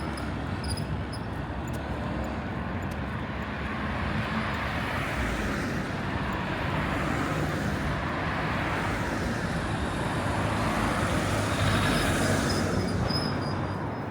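City traffic passing by: a rushing vehicle noise that swells and fades, loudest near the end and dropping off sharply just before it stops.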